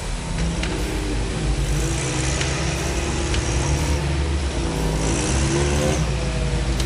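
Rock crawler's engine revving under load as it climbs a rock ledge, rising and falling in pitch, with a few sharp knocks.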